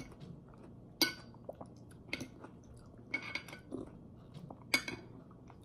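Metal fork clinking and scraping against a glass dish of canned yellow peaches in syrup, several sharp clinks spread a second or so apart.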